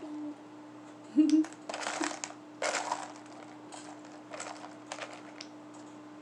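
Plastic beads rattling and clicking in a plastic box as hands rummage through them, in uneven clattering bursts. About a second in comes a short, loud vocal sound.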